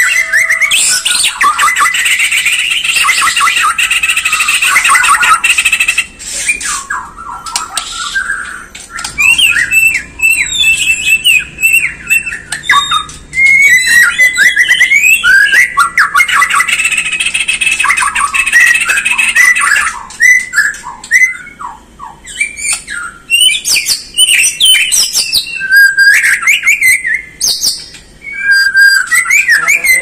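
White-rumped shama singing a long, varied song of loud whistles, quick rising and falling phrases and harsh rattling notes, broken by brief pauses.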